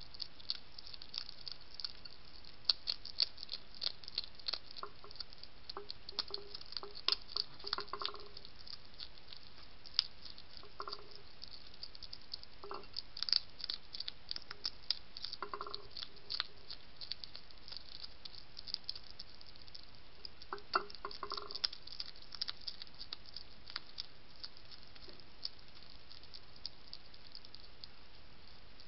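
European hedgehog crunching dry kibble from a plate: a dense, irregular run of crisp chewing clicks, with a few short lower-pitched sounds now and then.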